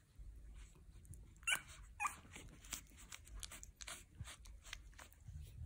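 Young French bulldog puppies giving two short, high squeaks that fall in pitch, about a second and a half and two seconds in, amid faint small clicks.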